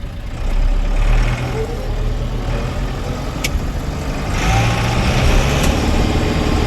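Case 995XL tractor's turbocharged diesel engine running under way in high range; it gets louder and fuller about four seconds in, with a single sharp click shortly before.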